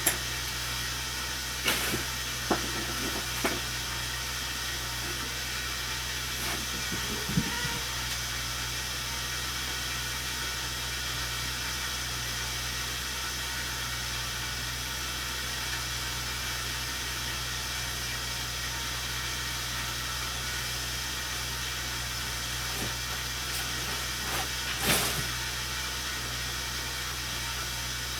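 Snow blower engine running steadily at a constant speed, with a few short knocks over it.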